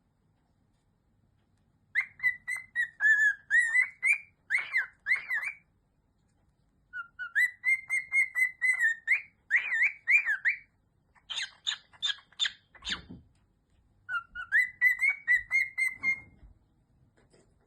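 Pet bird whistling phrases of a march tune, clear notes that wobble up and down, in three phrases separated by pauses. Between the second and third phrase comes a short run of harsher chirps.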